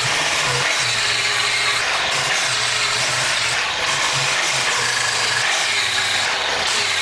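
Handheld angle grinder grinding steel, a steady loud rush of disc on metal. Its whine shifts up and down in pitch as the disc is pressed into and eased off the work.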